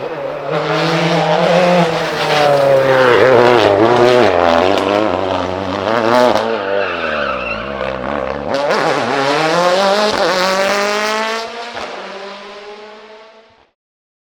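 A World Rally Car's turbocharged engine revving hard through the gears, its pitch repeatedly climbing and dropping as the driver accelerates, shifts and lifts for corners. The sound fades and then cuts off abruptly near the end.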